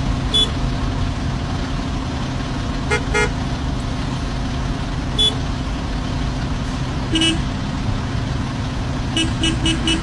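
Street traffic with a steady engine-and-road rumble and car horns tooting: single short beeps every few seconds, then a rapid string of quick beeps near the end.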